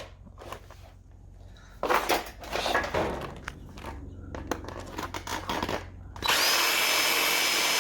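Power drill drilling out metal rivets, with the bit catching in uneven bursts and clicks. About six seconds in, it runs steadily at full speed with a high whine.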